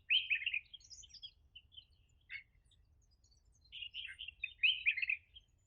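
Songbird chirping: a quick run of high chirps at the start, a few scattered notes, then a longer flurry of chirps about four seconds in.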